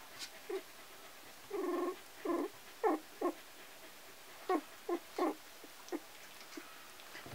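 A 12-day-old puppy giving about nine short, high squeaks and whimpers. The first, about a second and a half in, is the longest, and the rest are quick single yelps spaced out over the next few seconds.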